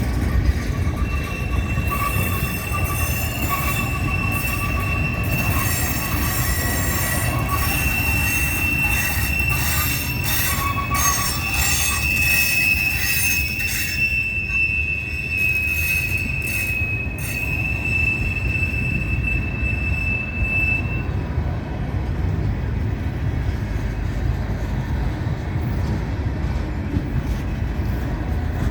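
Freight train cars rolling past with a constant low rumble and clatter of wheels. A high, steady wheel squeal rides over it for about the first twenty seconds, then stops.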